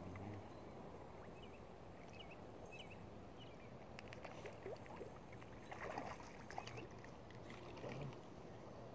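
Faint outdoor ambience at a lakeshore: a steady low hiss of air and water, with a few faint high chirps about two to three seconds in and some soft clicks and rustles of fishing tackle about six seconds in.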